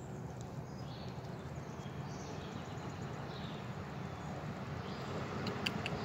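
Steady outdoor background noise, with a quick run of short, sharp high chirps about five and a half seconds in.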